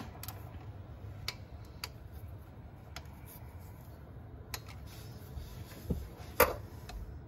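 A ratchet and socket turning transmission pan bolts: sparse sharp metal clicks, about one a second, with a louder click a little over six seconds in. The torque-to-yield pan bolts are being turned a further 180 degrees after their first 4 N·m.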